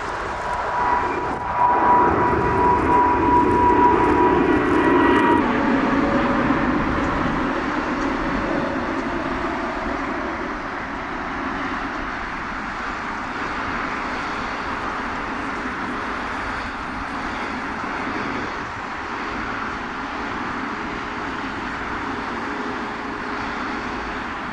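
Air Canada Boeing 787-9 Dreamliner's two GEnx turbofans at takeoff power as it climbs directly overhead. A loud jet rush peaks a few seconds in with a high whine that drops in pitch as it passes, then fades slowly as the jet climbs away.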